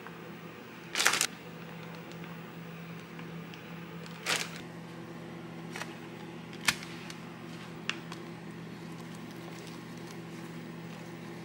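Food-prep handling noises as a tortilla pizza is assembled by hand: a few brief rustles and sharp clicks, the loudest about a second in, over a steady low hum.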